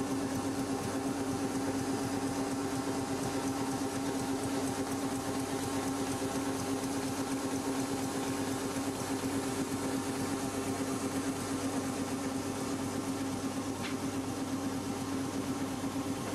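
Winkler + Dünnebier ConceptD digital inkjet envelope printing machine running in production, its feeder and conveyor giving a steady mechanical hum with a fast, even clatter.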